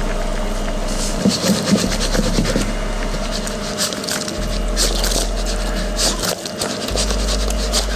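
Glazed chicken drumsticks being tossed in a wok: repeated scraping and clattering of the meat and pan, over a steady low hum.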